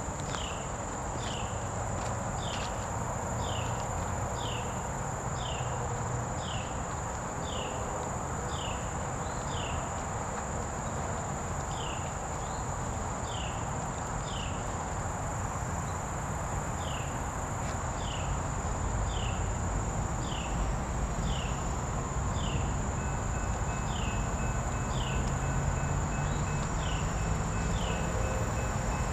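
Insects drone steadily, with a short falling chirp repeating about once or twice a second, over the low rumble of an approaching train that grows louder in the last third.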